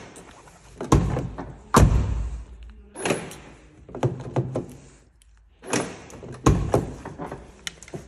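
Door locks of a 2008 Opel Zafira clunking as the driver's door is unlocked with the key, then the handle pulled and the latch released as the door opens: a series of sharp thunks, the heaviest about one and two seconds in and again past six seconds. The repaired central locking is working.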